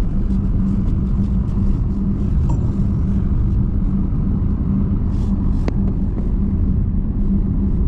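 Toyota Tundra pickup engine running steadily under load as the truck pushes through deep snow, a low rumble with a steady hum, with a few light clicks scattered through.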